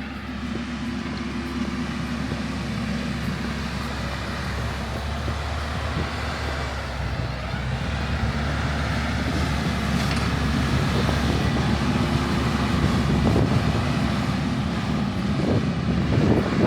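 TYM 574 compact tractor's diesel engine running while plowing snow, growing gradually louder as the tractor comes closer.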